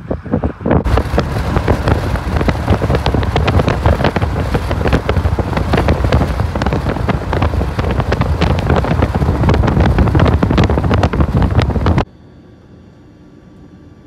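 Strong, gusty wind buffeting the microphone, a loud rushing roar with constant rumbling thumps. It cuts off suddenly about twelve seconds in, leaving a much quieter steady background.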